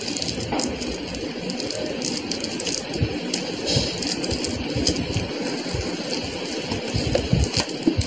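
Plastic shrink-wrap on a cup-noodle cup crinkling and crackling as fingers pick and scratch at it to find where it opens, with many irregular small clicks.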